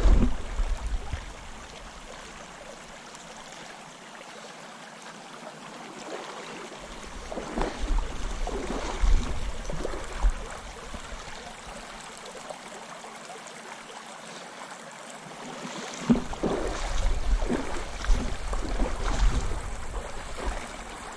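Shallow river water running over gravel in a steady rush, with wind buffeting the microphone as low rumbling gusts near the start, through the middle and toward the end.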